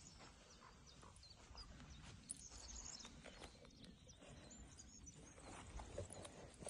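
Near silence: faint outdoor background with a few soft scattered ticks.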